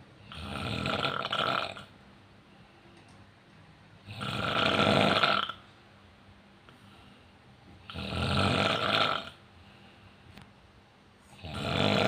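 A sleeping man snoring: four long snores, one about every four seconds, each lasting roughly a second and a half, with quiet between them.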